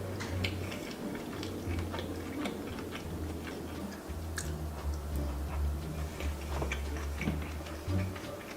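Close-miked eating sounds: chewing with many small, irregular wet clicks and smacks from the mouth, over a steady low hum.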